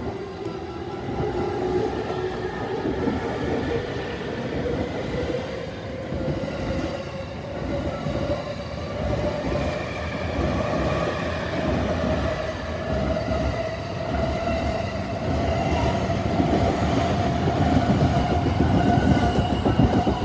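Yokosuka Line train running past a level crossing, its wheels clattering over the rail joints, with a humming tone that rises slowly in pitch. It gets louder toward the end.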